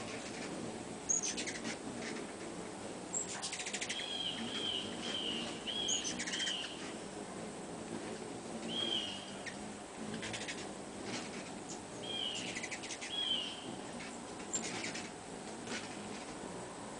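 Hummingbirds chirping at a feeder: a quick run of five short, arched chirps about four seconds in, then a few more later. Brief very high squeaks and small clicks are scattered through, over a faint steady hum.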